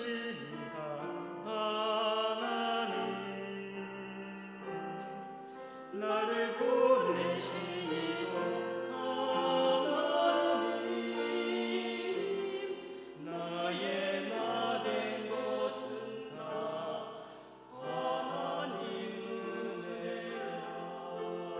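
Classical-style singing of a Korean gospel song, with long held notes and vibrato.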